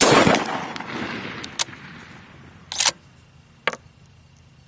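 A single rifle shot from a bolt-action Howa 1500 in 6.5 Creedmoor, its report rolling away over about two seconds. It is followed by a few sharp clicks about one and a half, three and nearly four seconds in.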